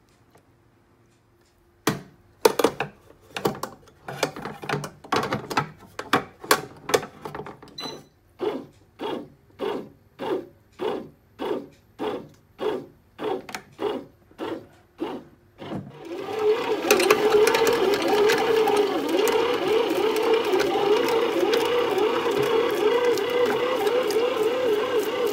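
Bread machine kneading dough. Its motor first turns the paddle in short pulses, about two a second, to work the flour in gently. At about 16 s it switches to running without a break, louder and with a wavering whirr, as the dough is kneaded.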